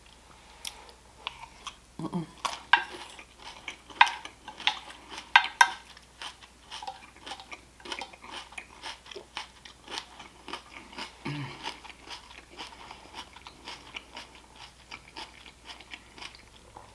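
A person chewing and biting crunchy food close to the microphone: a few loud crunches in the first six seconds, then steadier, softer chewing at about two bites a second.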